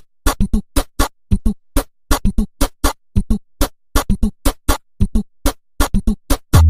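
Electronic backing music: a bare drum-machine beat of short, sharp hits, about three to four a second. Near the end a deep, held bass and synthesizer come in.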